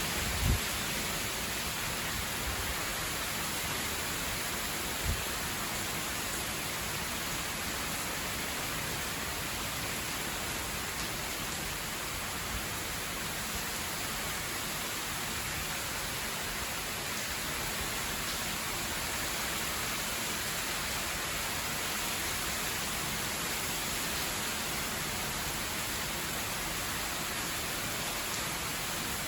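Typhoon wind and rain: a steady rushing hiss throughout, with two brief low thumps, about half a second and five seconds in.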